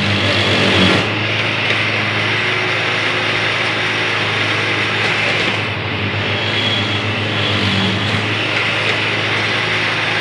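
Electromatic Mk II track tamper's engine running steadily, a constant low hum with a busy mechanical clatter over it, as the machine works along the track.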